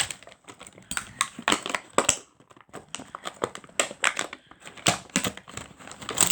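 A fidget spinner's box packaging being handled and opened by hand, with irregular crinkling and sharp clicks that come in clusters and pause briefly in between.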